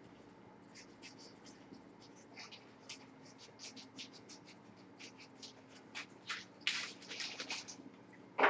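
Paper mustard-plaster packets rustling and crinkling as they are handled: a run of short, faint, scratchy sounds that grows busier and louder near the end.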